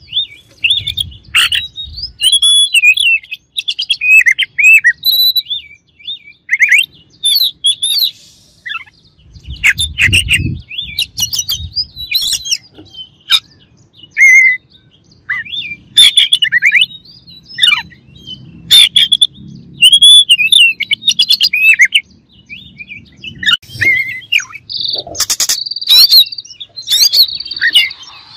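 Oriental magpie-robin singing a long, varied song of short whistled and warbled phrases, broken by sharp clicking notes.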